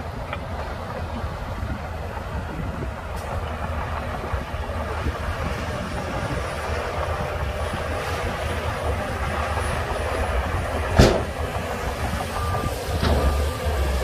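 Heavy diesel earthmoving machinery running steadily: a Shantui DH17C2 bulldozer working beside a dump truck that is tipping its load of soil. One sharp metal clank about eleven seconds in.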